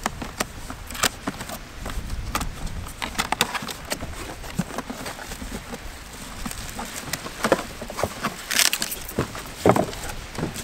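Cardboard box being opened and its packing handled: scattered clicks, taps and rustles of cardboard flaps and inserts. Near the end there is a louder crinkle of a plastic bag as a bagged case is lifted out.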